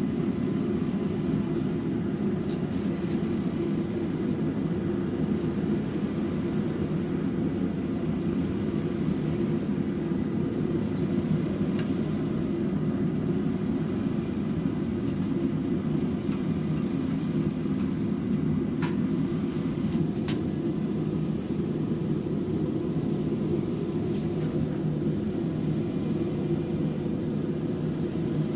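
Steady low roar of workshop equipment running without a break, with a few faint ticks scattered through it.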